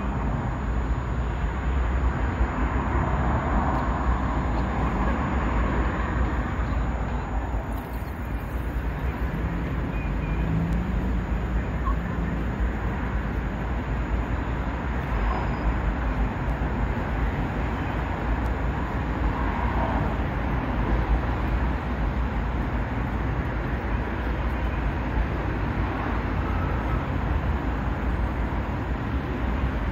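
Steady city traffic noise: a continuous low rumble of car engines and tyres, with no single vehicle standing out.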